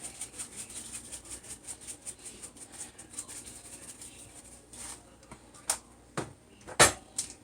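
A seasoning shaker shaken quickly over chicken: a fast, even rattle for about four and a half seconds, then a few separate sharp clicks, the loudest near the end.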